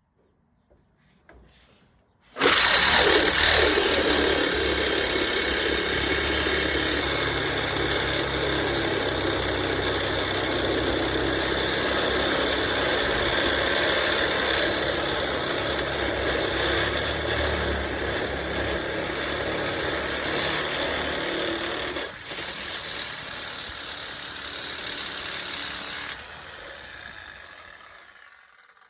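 Power cutting tool running under load as it saws through a steel truck-bed bolt. It starts suddenly about two seconds in with a steady motor whine and cutting noise, falters briefly once, then winds down and fades near the end.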